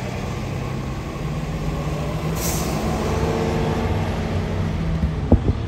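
Rear-loader garbage truck's diesel engine running steadily, with a short hiss of air brakes about two seconds in and a couple of low thumps near the end.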